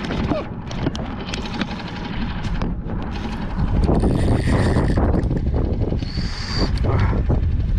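Steady low rumbling noise, growing louder about four seconds in, with scattered irregular clicks and knocks from handling close to the microphone.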